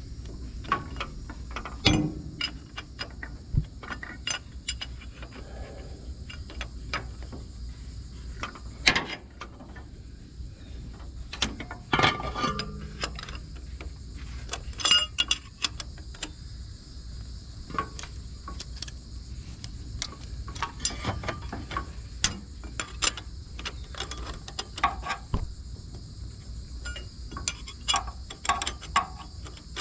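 Hand tools working on a car's battery cable connections: scattered sharp clicks and metallic knocks, with a quicker run of clicking near the end.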